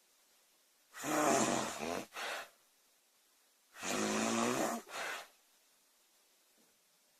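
A girl snoring loudly. There are two snores about three seconds apart, each a pitched snore lasting about a second followed right away by a short second gust of breath.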